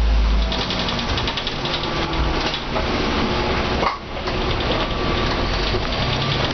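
Cabin sound of a Mercedes-Benz O405N single-deck bus under way: its engine and ZF automatic gearbox running, with rattles and rain on the windscreen. It drops briefly about four seconds in.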